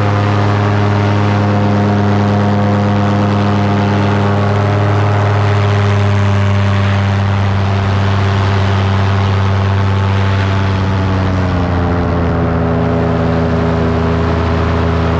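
Paramotor engine and propeller running steadily at cruise power, easing off slightly about eleven seconds in, with wind hiss over the microphone.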